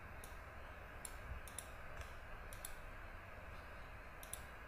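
Several faint, sharp computer mouse clicks at irregular intervals over a steady low hiss of microphone background noise.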